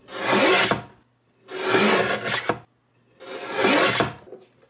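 Sliding-blade paper trimmer cutting along the edge of an art print: three rasping strokes, each about a second long, with short pauses between.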